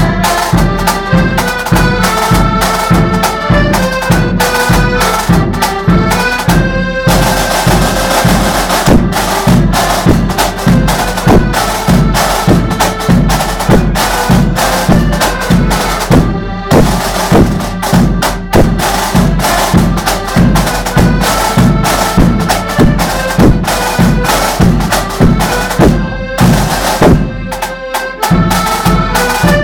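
Accordion band playing a march: piano accordions carry a reedy melody over snare and bass drums beating a steady rhythm.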